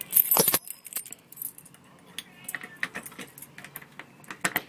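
A bunch of keys jangling, loudest in a burst right at the start, then scattered metallic clicks and rattles as a key is tried in a door lock.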